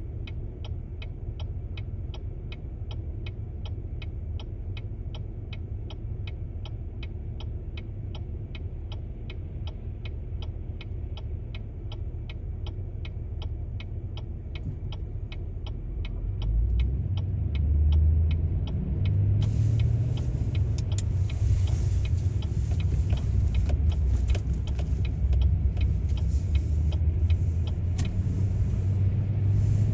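Inside a moving car: the turn-signal indicator ticking steadily, about two to three clicks a second, over low engine and road rumble. About sixteen seconds in the rumble grows louder, and a few seconds later a steady tyre hiss joins it.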